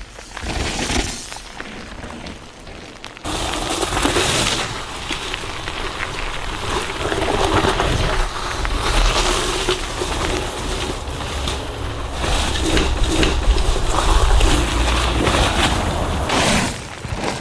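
Mountain bike ridden over rough ground: tyre noise with the frame and chain clattering over bumps, under a low rumble. It gets suddenly louder about three seconds in and drops away near the end.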